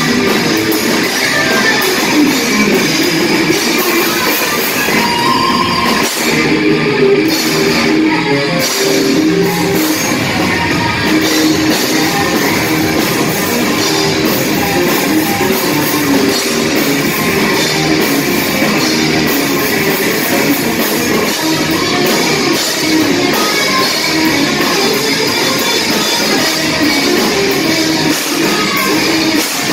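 Live rock band playing loud, distorted-sounding hard rock: two electric guitars, a bass guitar and a drum kit.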